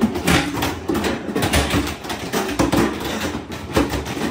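Irregular knocks, thumps and rustling of people clambering across a swaying rope obstacle, several a second.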